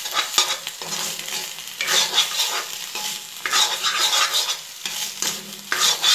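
Metal spatula stirring and scraping greens and boiled potatoes frying in a black kadai. The frying sizzle swells with each stroke, in surges every second or two.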